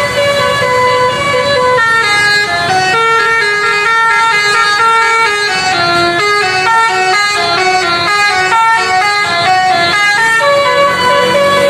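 Basuri telolet bus horn, a set of multi-tone air-horn trumpets, playing a fast tune note by note, each pitch held for a fraction of a second before stepping to the next.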